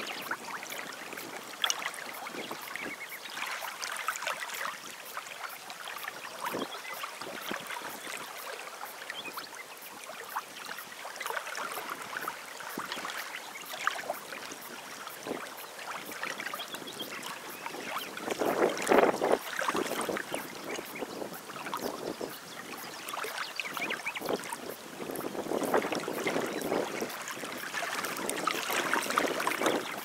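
Water lapping and splashing at a shoreline, a continuous rushing wash that swells louder about two-thirds of the way in and again near the end.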